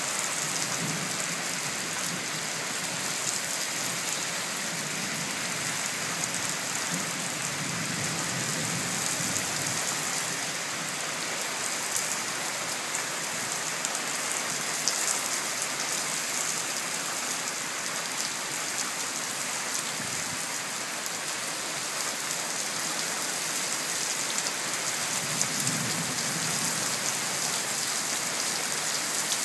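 Heavy tropical-storm squall rain pouring steadily onto pavement, lawns and a shingle roof, with faint low rumbles swelling under it a couple of times.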